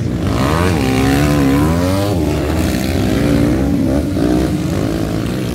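Several motocross dirt bike engines revving hard, their pitch rising and falling sharply in the first two seconds as the riders work the throttle over the jumps, then holding steadier.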